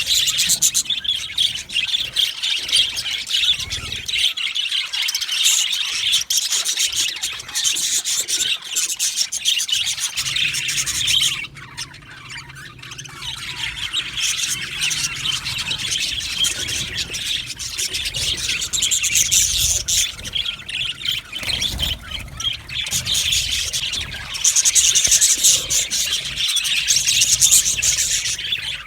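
A flock of budgerigars (budgies) chattering and chirping continuously, many birds at once. The chatter eases briefly about twelve seconds in and is loudest near the end.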